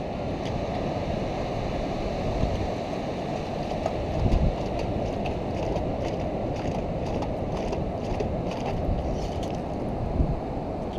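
Shallow ocean surf washing in and out, a steady rushing noise, with a few faint clicks over it.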